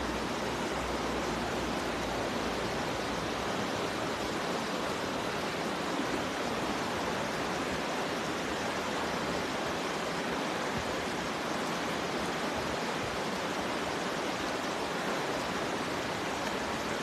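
Steady rushing of a stream running over rocks.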